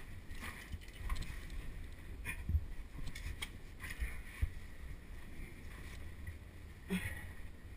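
Scraping, rubbing and scattered knocks of a caver's helmet, clothing and gear against rock while crawling through a tight cave passage, picked up by the helmet-mounted camera's microphone. One sharper knock comes about seven seconds in.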